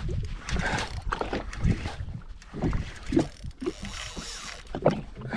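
Spinning fishing reel (Daiwa Certate) working under the load of a hooked fish, with mechanical clicking and whirring, over water slapping and wind buffeting the microphone.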